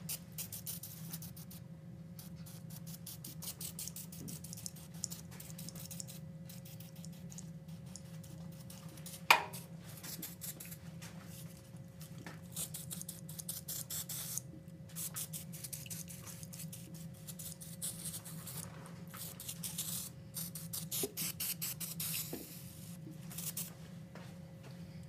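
Aerosol can of silicone spray lubricant sprayed onto a rusty metal bench vise in many short hissing bursts, over a steady low hum. One sharp click about nine seconds in is the loudest single sound.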